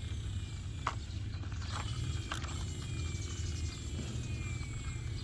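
Plastic toy truck mechanism being worked by hand, giving a steady fine ratcheting rattle broken by a few sharper clicks.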